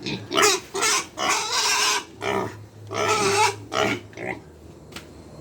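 Hungry pigs squealing loudly for their feed in a run of calls, which die down about four seconds in.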